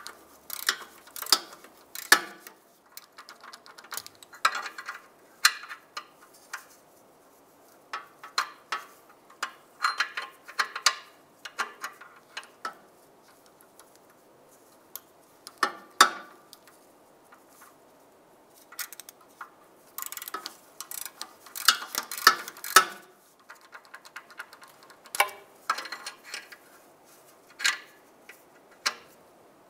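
Hand ratchet clicking in short runs, with metal tools clinking, while an oxygen sensor is loosened from the exhaust pipe.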